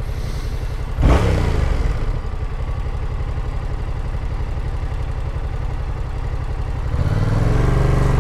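Yamaha MT-07 motorcycle's parallel-twin engine running at low revs. About a second in there is a brief louder sound that falls in pitch. Near the end the revs climb as the bike accelerates.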